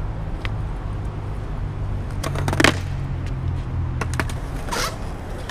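Skateboard wheels rolling on concrete with a steady low rumble. About two and a half seconds in come sharp wooden clacks of the board popping and hitting the ground, then more knocks a couple of seconds later.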